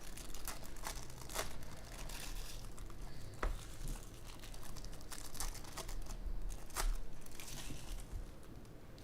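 Trading-card pack wrappers crinkling and tearing as packs and cards are handled, with scattered short crackles and taps.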